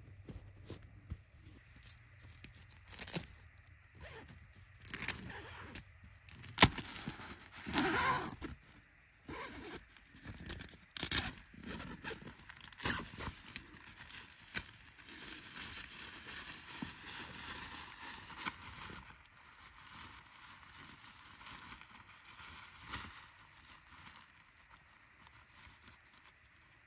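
Handling sounds of pitching a tent in snow: scattered clicks and scrapes as a guy line and stake are set, with a sharp knock about a third of the way in, then a longer stretch of tent fabric rustling.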